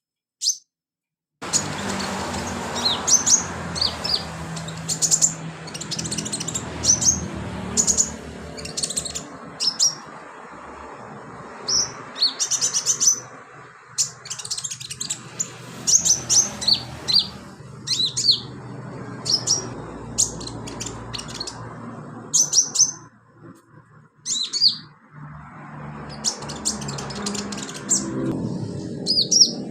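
A sunbird sings in quick runs of short, sharp, high-pitched chirps and trills, repeating throughout with brief pauses, over a constant low background noise.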